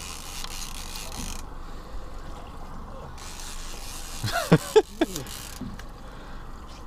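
Fishing reel mechanism ticking as line pays out to drop a bait toward the bottom, over a steady boat hum, with a short voice-like sound about four and a half seconds in.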